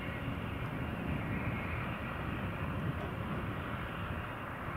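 Cessna 208 Caravan's Pratt & Whitney PT6A turboprop running steadily at taxi power while the plane taxis and turns, a continuous propeller and engine drone.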